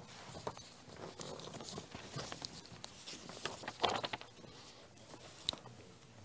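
Faint paper handling and footsteps: sheets of paper rustling, with scattered light clicks and a brief louder rustle about four seconds in.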